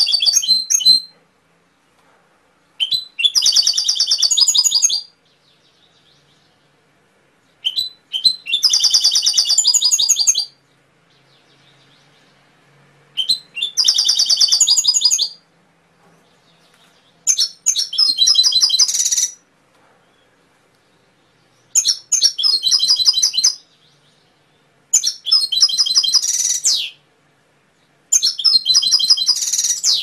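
Domestic canary singing in repeated bursts of rapid trilled song, each phrase about two seconds long, with pauses of two to three seconds between phrases. Seven phrases follow one another in this way.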